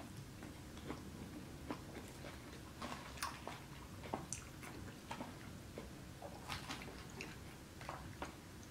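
A person chewing a mouthful of creamy fettuccine Alfredo close to the microphone, with faint, irregular wet mouth clicks a few times a second.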